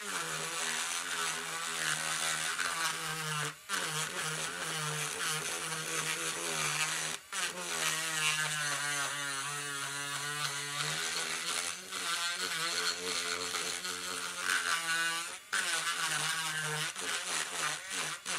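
Dremel Stylo+ rotary craft tool with a ball-ended carving bit, running and carving into natural wood. It gives a steady buzzing whine whose pitch wavers as the bit bites, and it dips out briefly about three times.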